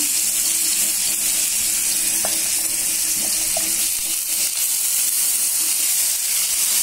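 Freshly added coarse onion paste sizzling steadily in hot oil in a nonstick pan, with a wooden spatula stirring it near the end.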